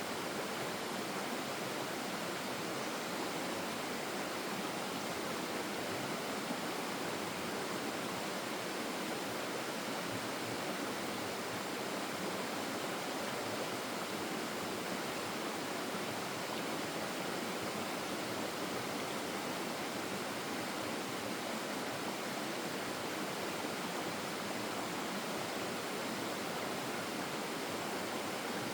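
Stream water flowing steadily over rocks, an even rushing hiss with no breaks.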